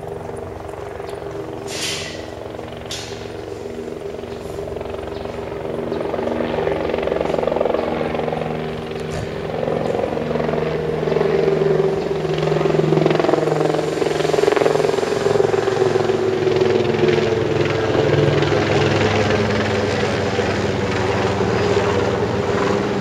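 Helicopter flying overhead, a steady engine and rotor drone that grows louder over the first half and stays loud. Two sharp clicks sound about two and three seconds in.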